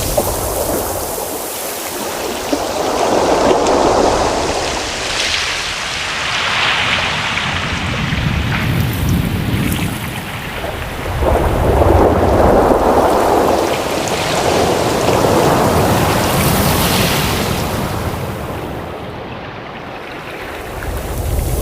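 Ocean surf: waves washing in and drawing back, a rushing noise that swells and fades every few seconds over a low rumble.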